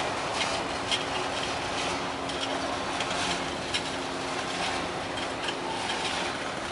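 Freight train cars rolling past: a steady rumble of wheels on rails with scattered sharp clicks and knocks.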